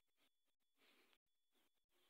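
Near silence: faint outdoor background noise that keeps cutting in and out.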